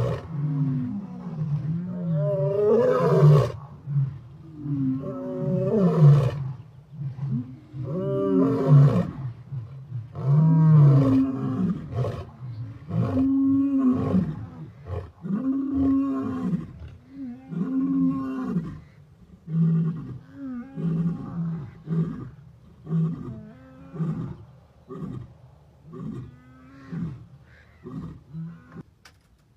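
A big cat roaring: a long series of calls about every two seconds that come shorter, closer together and fainter toward the end.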